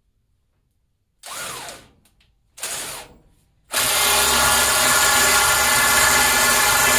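Electric drill driving a flaring tool into the end of 3-inch steel exhaust tubing to flare it out: two short blips of the drill, the first rising then falling in pitch, then a steady loud run under load that stops right at the end.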